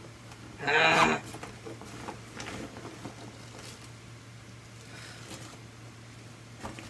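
Light rustling and small clicks of things being handled, with one short, loud pitched sound about a second in.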